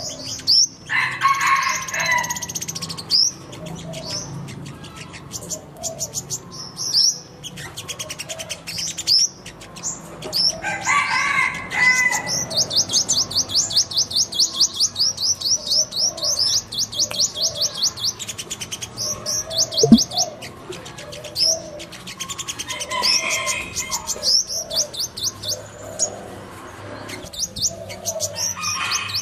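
Purple sunbirds singing: quick high-pitched notes, with a fast run of repeated high notes lasting about five seconds midway and lower warbled phrases in between. A single sharp click about twenty seconds in is the loudest sound.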